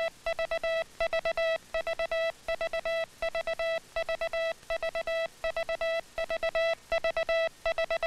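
Morse code sent by hand on a leg-clamped telegraph key, heard as a steady mid-pitched code tone keyed on and off in short dits and longer das. The sending is even and rhythmic, in regular repeating groups.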